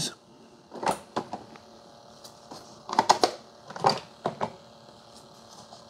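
Light plastic clicks and knocks as compostable coffee pods are dropped and pressed into the pod holders of Keurig single-serve brewers, several separate taps in small clusters.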